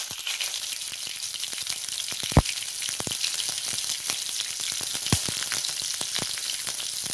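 Green chillies, mustard seeds and cumin frying in hot oil in a kadai: a steady sizzle with scattered sharp pops as the seeds splutter. The loudest pop comes about two and a half seconds in.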